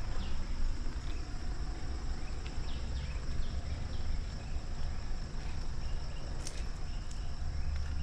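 Insects shrilling steadily as a constant high drone, over a low rumble on the microphone.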